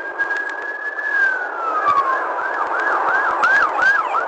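Police car siren: a held wail tone that falls away, then switches to the fast yelp, rising and falling about three or four times a second, over steady road and engine noise.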